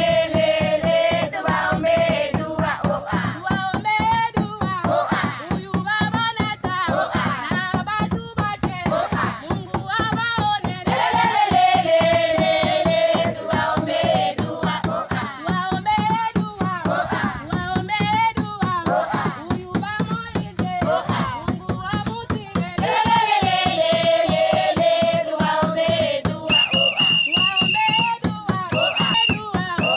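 A group of women singing together to steady rhythmic hand clapping.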